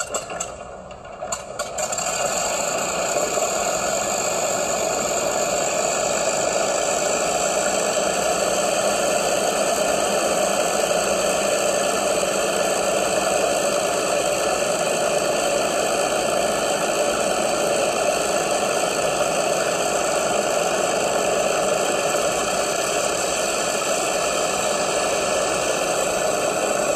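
A recording of an Avro Lancaster bomber's Rolls-Royce Merlin V12 engines running with the propellers turning, playing back from a video. After a few clicks, the engine sound comes up about two seconds in and then holds steady.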